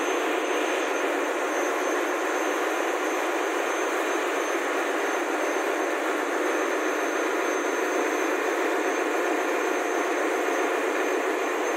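Steady, even noise of a ship's engine-room machinery with the main engine stopped for overhaul, a thin steady high whine running over it.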